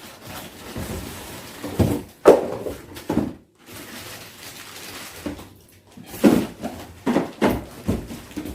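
Vacuum cleaner attachments and pipes being handled and set down: rustling with about half a dozen short knocks and clatters spread through.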